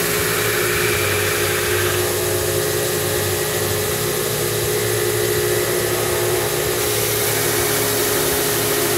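RPI belt grinder running steadily, a hardened steel knife blade held against the moving belt to grind its bevels, with a grinding hiss over the motor hum.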